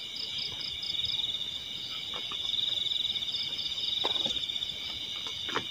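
Steady chorus of calling insects: a continuous high buzzing trill with a second trill above it that pulses several times a second. A few faint, brief low sounds come through now and then.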